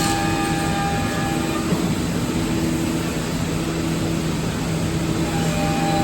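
Multi-head CNC woodworking router with 5.5 kW spindles running, giving a steady machine hum with several constant whining tones over a bed of noise; the higher whine drops out for a few seconds in the middle and returns near the end.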